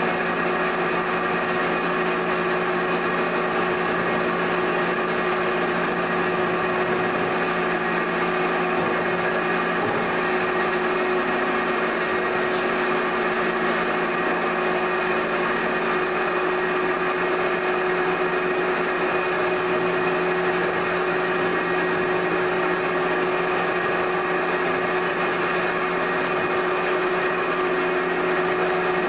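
Electric potter's wheel running at a steady speed, an unchanging motor hum with a steady tone in it, while clay is thrown on the wheel head.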